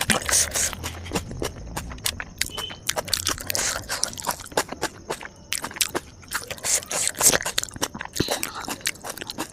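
Close-miked eating: crunchy bites and chewing, a dense run of crackling clicks.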